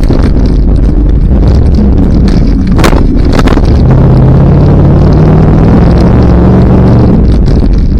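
Off-road race truck engine running hard and loud, its pitch rising and wavering as it is revved. Two sharp knocks come about three seconds in.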